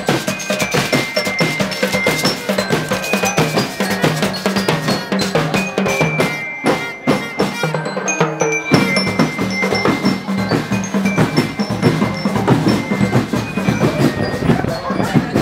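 Marching band percussion: snare and bass drums beating a steady marching rhythm, with a bell-like melody ringing over them.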